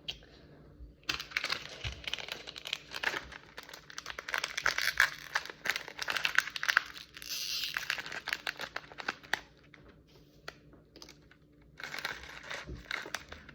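Plastic snack wrapper being crinkled and torn open by hand. The crinkling is dense from about a second in, thins out past the middle, and picks up again near the end.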